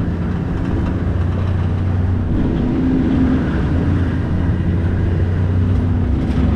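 Motor vehicle driving along, its engine running with a steady low hum.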